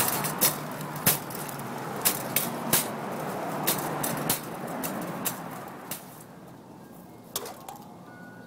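Loaded wire shopping cart pushed over pavement: the wheels rumble and the metal basket clatters and rattles irregularly. The rattling fades about six seconds in, and a faint ice cream truck jingle begins near the end.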